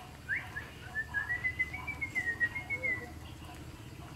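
A bird calling: one sharp rising note, then a fast string of short chirps that wavers around one pitch for about two and a half seconds.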